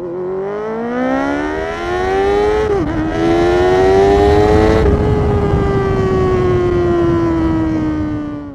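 A high-revving engine accelerating, with a short dip in pitch about three seconds in like a gear change. It climbs again and then holds a high, slowly falling note until it cuts off abruptly at the end.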